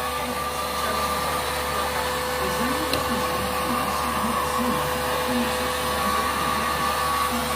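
Electric heat gun running steadily, a fan rush with a constant whine, blowing hot air to melt the ice built up in a refrigerator that is not cooling.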